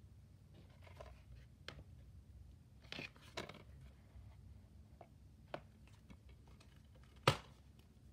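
A plastic DVD case being handled by hand: scattered light clicks and rustling as it is turned over, with one sharper knock about seven seconds in.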